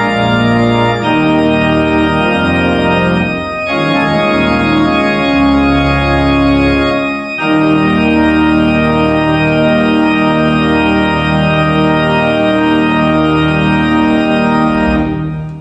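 Organ playing slow, sustained chords that shift every few seconds, with the last chord dying away near the end.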